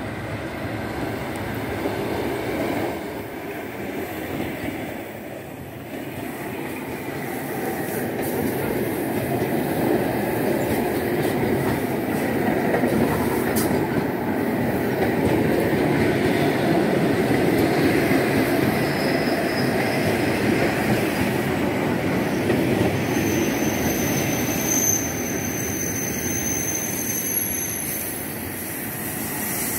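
ED2T electric multiple unit rolling into the station: steady wheel-on-rail running noise that builds as the carriages pass close by, then a high-pitched squeal in the last few seconds as the train slows to a stop.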